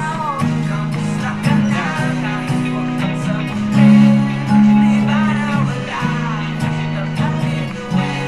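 Acoustic guitar strumming chords, moving from the verse's G–Bm into the refrain's G–A–Bm, D–Em–G progression, with a sung vocal melody over it.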